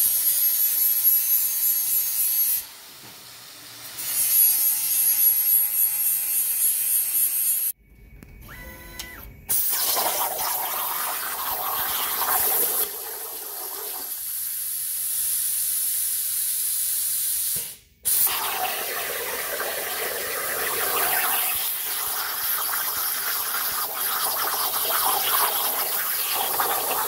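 Handheld angle grinder cutting into a steel exhaust pipe, a loud, high hiss. Then a CNC plasma cutting table cutting steel plate with a steady hiss, which runs on after a break in the sound at about 18 seconds.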